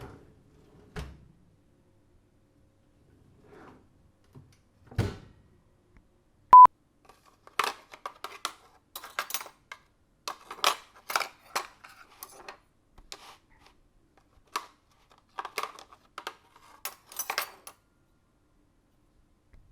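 Oven door closing, a few dull thuds, then a single short, loud beep. After that come many sharp clinks and rattles of metal kitchen utensils being put into and sorted in a utensil holder.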